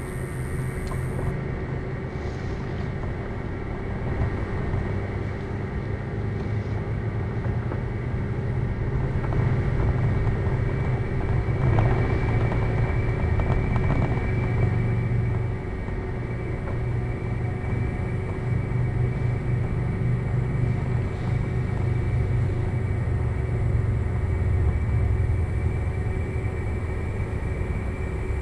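Steady low mechanical rumble of a running motor, with a constant hum of several steady tones over it.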